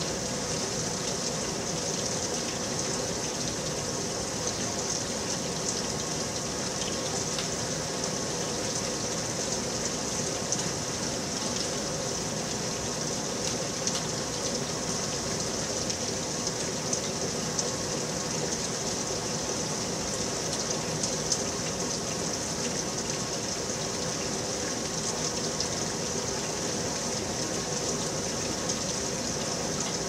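Thunderstorm rain falling steadily, an even hiss with a few sharper drops striking close by.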